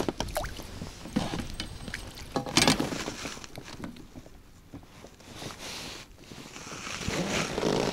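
Handling noises as a perch is landed in a landing net aboard an inflatable boat: scattered knocks and rustles with water splashing and dripping from the net, the loudest knock about two and a half seconds in.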